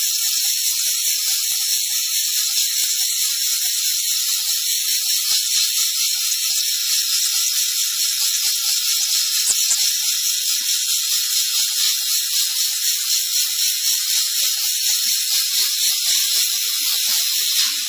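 Steam jet from a steam car-wash machine's nozzle hissing steadily as it is played over a heavily stained fabric car seat; it cuts off suddenly near the end.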